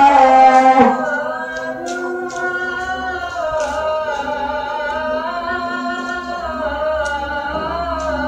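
Adhan, the Islamic call to prayer: a single voice draws out the end of "Muhammadar Rasulullah" loudly, then carries on for several seconds more softly in a long, wavering melismatic phrase without words.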